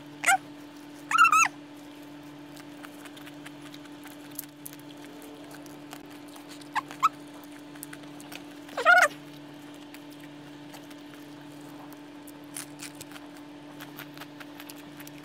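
A few short, high squeaky calls with a wavering pitch, like a small animal's, over a steady low hum; the loudest comes about nine seconds in and falls in pitch. Faint clicking near the end.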